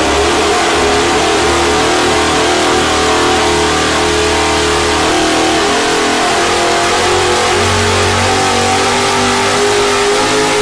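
Motus KMV4 liquid-cooled 90-degree pushrod V4 engine running loud on an engine test dynamometer, its revs rising and falling a little.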